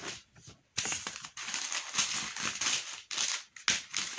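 Shopping bag and product packaging crinkling and rustling as items are rummaged out of the bag, in uneven bursts starting about a second in.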